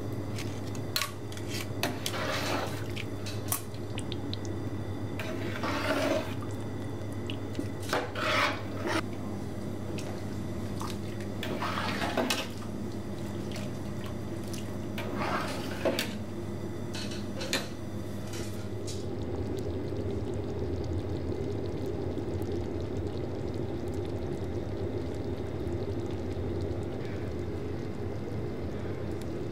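A long metal spoon stirring thick tomato sauce in a large stainless steel stockpot, scraping and sloshing in about five strokes a few seconds apart. Later comes a steadier, softer sound from the simmering sauce, over a constant low hum.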